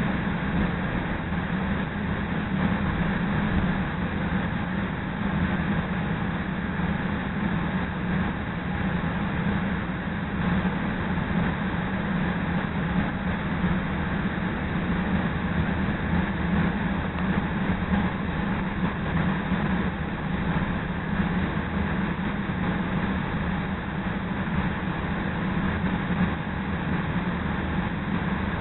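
Chicago 'L' rapid-transit train (CTA Red Line) running at speed, heard from inside the car: a steady, unbroken running rumble of the train on the rails.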